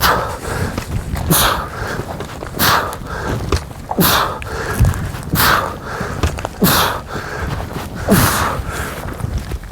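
A person breathing hard in loud, regular gasps, about one every second and a half, while moving on foot during a timed exertion drill.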